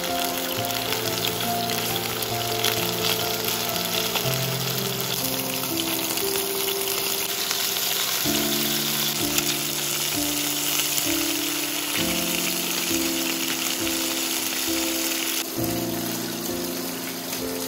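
Pieces of pork fillet sizzling as they fry in hot oil in a nonstick frying pan. The sizzle eases off near the end.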